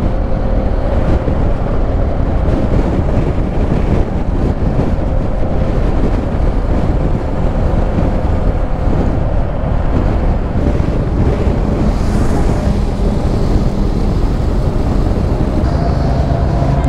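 Steady wind rush buffeting the microphone of a motorcycle rider's action camera at riding speed, with the motorcycle's engine and road noise running underneath.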